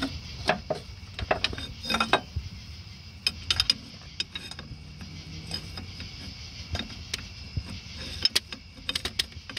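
Scattered metallic clicks, knocks and creaks as a failed CV axle is pried and worked out of the transmission, over a steady high drone of insects.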